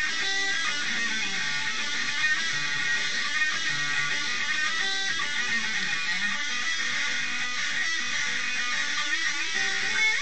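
Electric guitar played along with a heavy metal song, dense and continuous.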